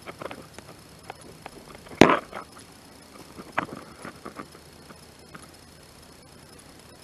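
Scattered clicks and knocks of hard objects being handled, with one loud sharp knock about two seconds in and a few lighter clatters a little later.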